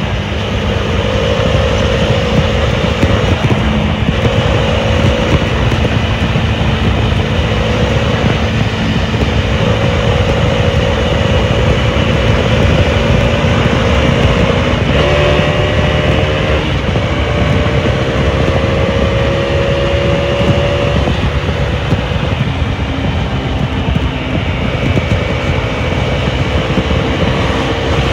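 Modenas Dominar 400's single-cylinder engine running at highway speed under heavy wind rush, its note slowly climbing as the bike speeds up.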